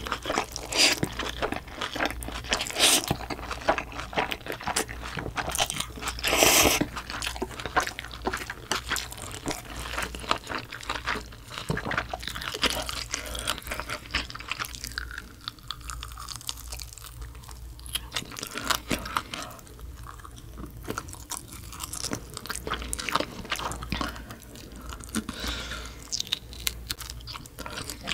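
Close-miked chewing and crunching of spicy mixed noodles with young-radish and chive kimchi, dense wet mouth clicks throughout, with a short loud noodle slurp about six seconds in.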